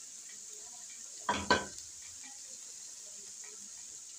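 Chopped onion, cabbage, chicken and green capsicum frying with a steady sizzle while a spatula stirs them in the pan. Two sharp scrapes or knocks of the spatula against the pan come close together about a second and a half in.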